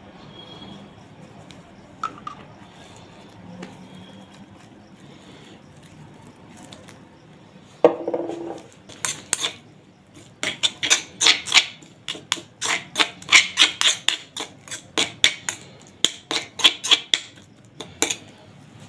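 Metal spoon stirring and scraping chopped onion against the inside of a stone mortar: a quick run of clinks and scrapes, about three a second, in the second half. A single loud knock comes just before the stirring begins.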